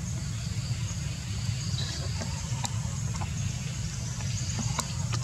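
Steady low rumble, with a faint high insect drone above it and a few small clicks near the end.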